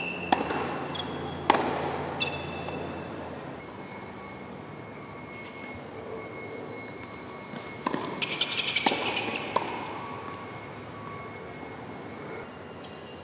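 Tennis balls struck with rackets on a hard court, with sneakers squeaking: two sharp hits in the first couple of seconds, then a quicker run of hits and squeaks about two-thirds of the way through.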